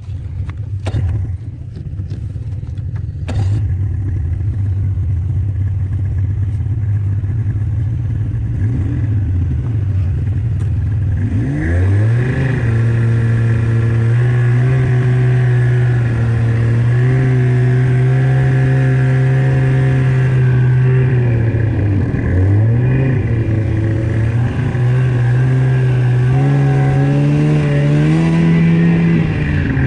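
Snowmobile engine running under throttle. It rises in pitch about twelve seconds in, drops and climbs back around twenty-two seconds, and revs up again near the end.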